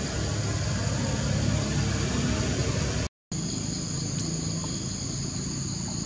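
Steady low rumbling background noise with a high, steady insect drone over it. The sound cuts out for an instant about three seconds in, and after that the insect drone stands out more clearly.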